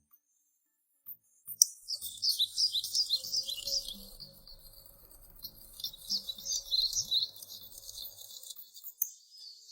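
Birds chirping in quick runs of short, high, rapidly repeated notes, starting after about a second and a half of silence, with a faint low hum underneath.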